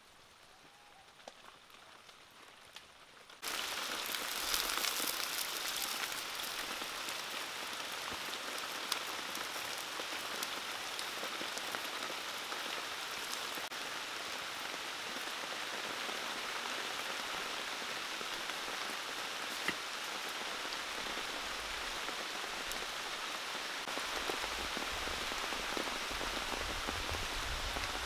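Steady rain falling, a dense hiss with scattered drop ticks, starting suddenly about three seconds in. A low rumble joins near the end.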